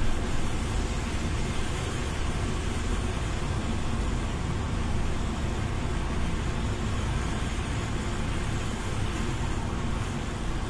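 Car driving on a wet road, heard from inside the cabin: a steady low rumble of road and engine with the hiss of tyres on wet tarmac.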